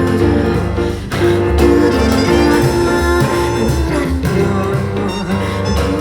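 Instrumental passage of a pop song with no singing, led by guitar over a steady bass line, played back through hi-fi loudspeakers.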